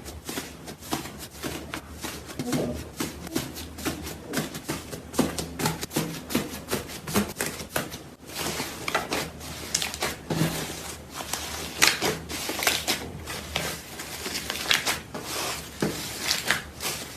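Slime being squeezed and poked by hand, a dense run of irregular clicks and pops, with a short break about eight seconds in.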